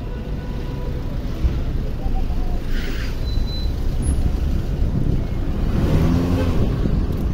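Street traffic: cars driving past at close range, a steady low rumble of engines and tyres, with a brief hiss about three seconds in.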